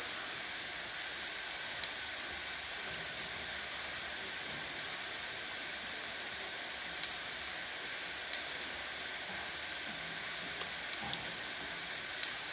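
Steady outdoor hiss with a few faint, short high-pitched ticks scattered through it.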